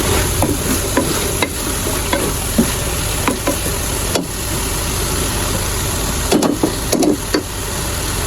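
Food sizzling steadily in a hot pan while being stirred, with a spoon knocking and scraping against the pot now and then, several times in quick succession near the end.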